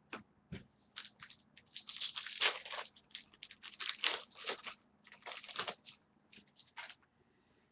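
Trading-card pack wrapper crinkling and tearing as a pack is opened, a run of short irregular crackles that is busiest in the middle and thins out near the end.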